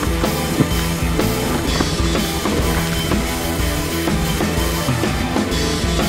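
Rock music with a drum kit keeping a steady beat.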